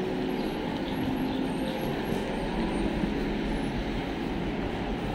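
Busy city street ambience: a steady wash of traffic noise with faint voices of passers-by.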